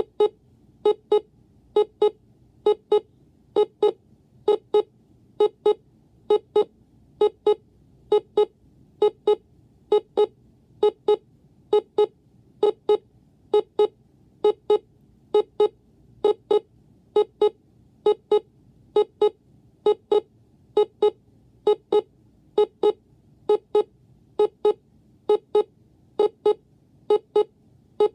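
Vector Storm Tracker Elite WC300 DSV alarm clock sounding its alarm: a steady, evenly repeating pattern of short double beeps, a little more than one pair a second, each beep a low-pitched buzzer tone with bright overtones.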